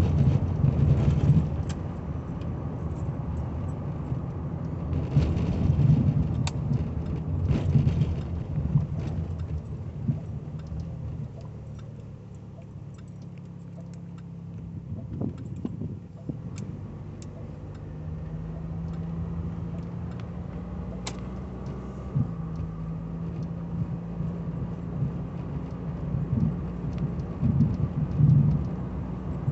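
A 1985 Cadillac Cimarron driving, heard from inside the cabin: low engine hum and road rumble, swelling a few times early on, dropping off for several seconds in the middle as the car slows for a turn, then settling into a steady low drone.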